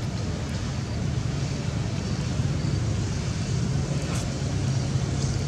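A steady low engine hum with general outdoor background noise.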